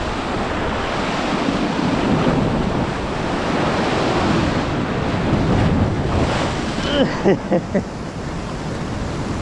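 Atlantic sea waves surging and breaking, with wind buffeting the microphone. A few short pitched sounds stand out about seven seconds in.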